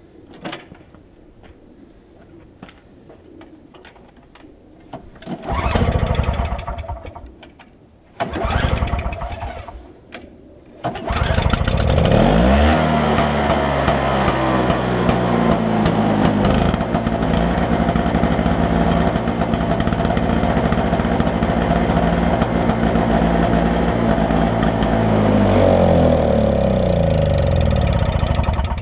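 Toro CCR 2500 snowblower's 5 hp two-stroke engine being started. Two short tries that don't catch come about 6 and 8 seconds in, then it fires at about 11 seconds and keeps running steadily. It runs on a freshly cleaned carburetor, after stale fuel had clogged it.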